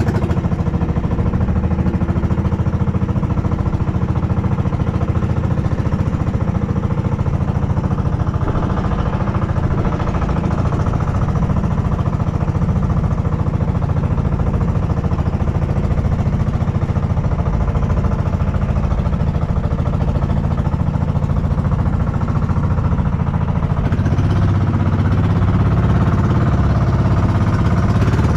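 Boat engine running steadily, getting a little louder near the end.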